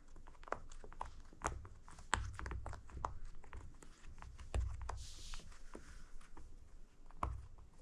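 Bubbles of a silicone pop-it fidget toy being pressed one after another, giving a run of soft, irregular pops a few times a second, with occasional low thumps from handling the toy.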